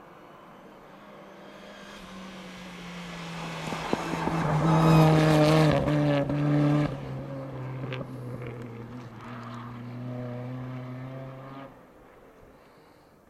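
Rally car engine revving hard as the car approaches, loudest as it passes. The engine note breaks off briefly twice at the peak, then keeps pulling as the car drives away and fades out near the end.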